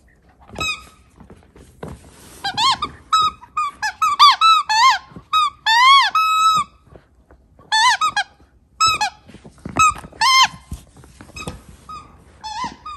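Staffordshire Bull Terrier puppy chomping a yellow rubber banana squeaky toy: quick runs of squeaks, some rising and falling in pitch, with short gaps, busiest in the middle.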